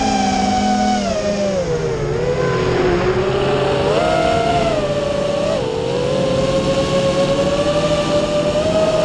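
FPV quadcopter's brushless motors whining as heard from the onboard camera, the pitch falling about a second in as the throttle eases off, rising again near four seconds, dipping briefly around five and a half seconds, then holding fairly steady.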